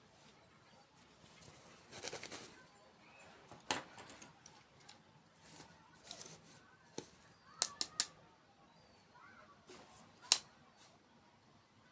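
Close-miked crunching and clicking of crisp desserts being bitten and chewed, in short scattered bursts, with three sharp clicks in quick succession about two thirds of the way in.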